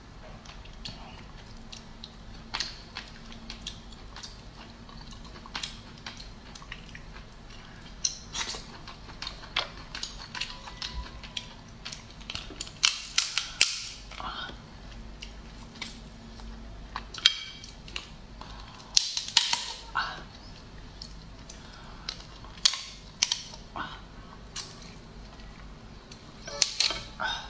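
Cooked lobster claw shell being cracked and snapped apart by hand and bitten, giving irregular sharp cracks and crunches that come in clusters, the loudest in the second half.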